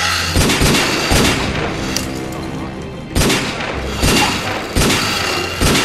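Background music: a hip-hop beat with a deep, steady bass and hard, booming drum hits.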